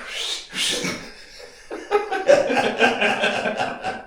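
Men laughing: a couple of breathy bursts at first, then a longer run of laughter from a little under two seconds in.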